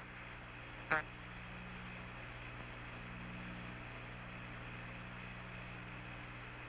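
Steady hiss and hum of the Apollo 10 air-to-ground radio and TV downlink. Short garbled voice blips cut in right at the start and again about a second in.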